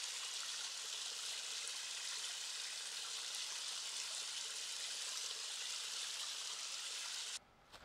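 Small waterfall splashing down rock ledges into a shallow pool: a steady, hissing rush of water that cuts off suddenly near the end.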